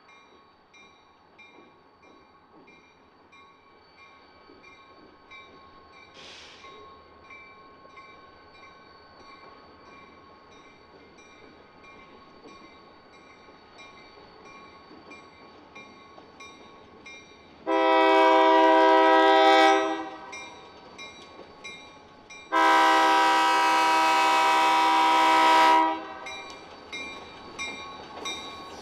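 Diesel locomotive air horn sounding two long blasts for a road grade crossing, the second longer than the first. Under it and before it, a bell dings steadily and faintly.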